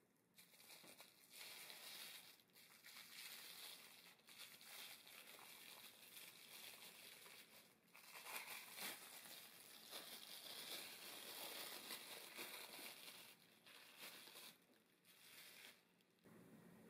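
Plastic cling film crinkling and rustling as hands peel it off a block of frozen semifreddo, with a few short pauses; it stops near the end.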